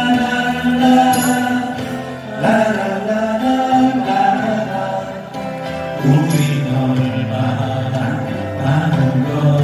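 Live acoustic band music: strummed acoustic guitars and keyboard, with voices holding long sung notes.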